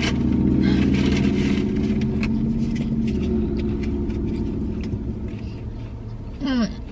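A car engine running steadily at an even pitch, slowly fading over several seconds. Near the end comes a short falling hum from a voice.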